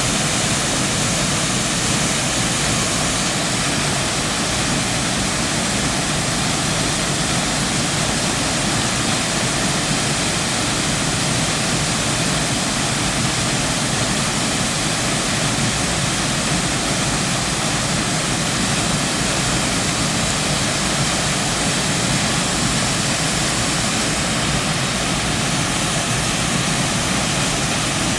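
Waterfall of about 8 metres pouring into a pool, a loud steady rush of falling water.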